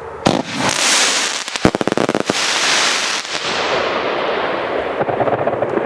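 Fireworks: a bang, then a hissing rush, then a rapid string of about ten sharp cracks about a second and a half in. It fades into a softer hiss and crackle.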